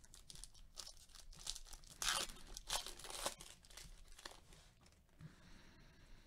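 Foil wrapper of a Topps Series 1 baseball card pack being torn open and crinkled, a quick run of short faint rips that is loudest two to three seconds in and fades out near the end.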